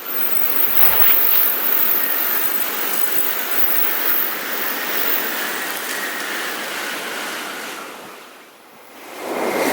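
Shinkansen bullet train passing at speed: a loud, steady rushing noise that fades away about eight seconds in. A second rush rises sharply near the end as the next train arrives.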